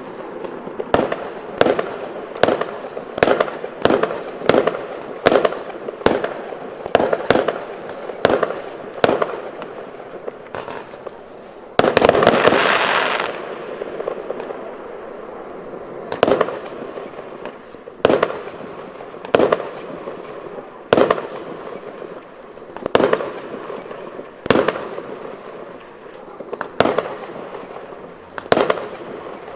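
Fireworks display: aerial shells bursting in a quick run of sharp bangs, then a dense crackling salvo about twelve seconds in that lasts over a second, followed by single bangs every second or two.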